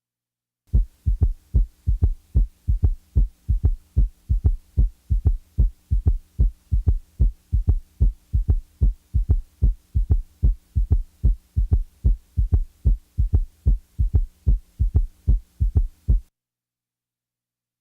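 Recorded heart sounds heard through a stethoscope: a steady run of low thuds, about three a second, over a faint steady hum. The sounds begin just under a second in and stop about a second and a half before the end. They are one item of a pretest in which the listener must tell which heart sound or murmur is played.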